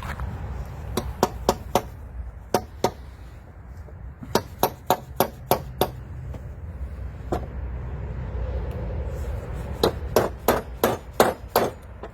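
Hammer blows struck in quick runs of up to about seven, with short pauses between runs.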